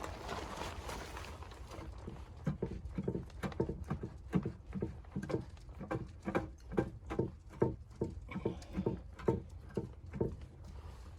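Footsteps crunching through deep snow in an even walking rhythm of about two steps a second, starting a couple of seconds in and stopping near the end. A brief rush of noise comes first.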